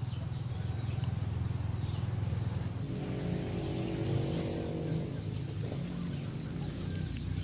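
Outdoor rural ambience: a bird chirping over and over in short, quick downward notes, over a steady low hum. A droning tone swells and fades about three to five seconds in.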